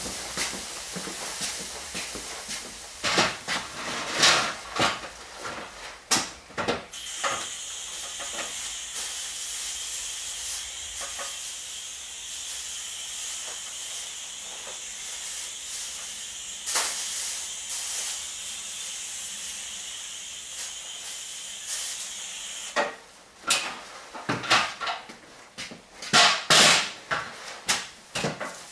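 Aerosol spray can released in one long, steady hiss of about fifteen seconds, starting about a quarter of the way in and cutting off near the end. Before and after it, plastic sheeting crinkles with sharp knocks as it is handled.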